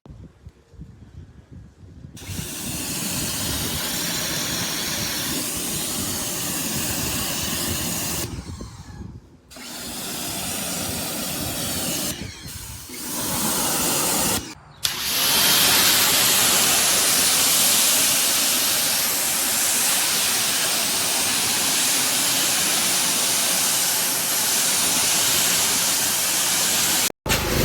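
Pressure washer gun spraying a high-pressure jet of water, a loud steady hiss. It starts about two seconds in and drops out briefly three times as the trigger is let go. It runs louder and unbroken through the second half.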